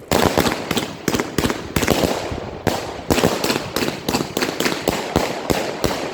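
A 144-shot, 25 mm firework cake firing shot after shot, about three sharp bangs a second, unevenly spaced.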